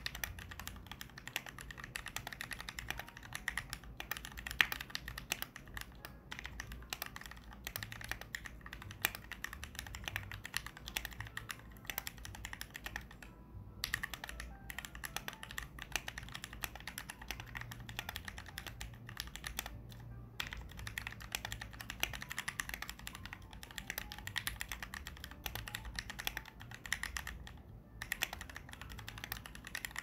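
Continuous typing on a Tofu65 mechanical keyboard fitted with Krytox-lubed Gateron Ink Black V2 linear switches, a polycarbonate plate and ePBT keycaps. The keystrokes come in a dense stream, broken by a few short pauses.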